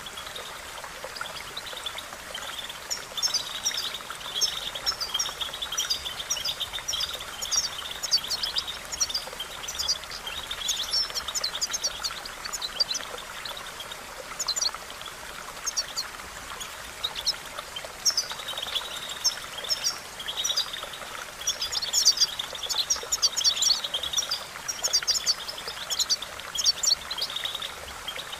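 European goldfinch singing: a long, fast run of twittering, tinkling notes, over the steady rush of running water.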